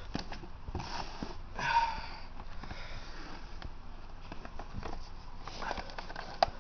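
Close breathing and a couple of sniffs at the camera's microphone in the first two seconds, over light handling rustle and small clicks from the handheld camera.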